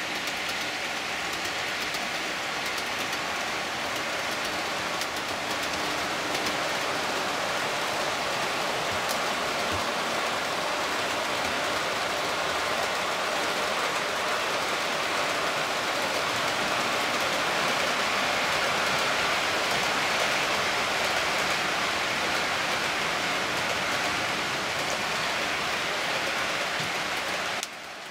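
Model container trains running on the layout's track, a steady rushing rattle of wheels on rails that drops off abruptly near the end.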